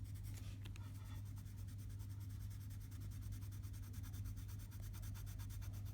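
Pencil shading on paper in quick, even back-and-forth strokes, blending the colour, over a steady low hum.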